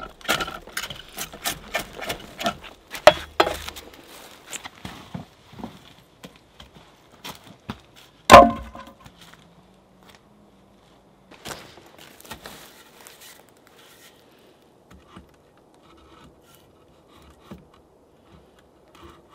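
Drawknife shaving bark off a wooden pole, a quick run of scraping strokes that stops about four seconds in. About eight seconds in comes one loud wooden knock, the loudest sound, then a few lighter knocks and scattered handling sounds.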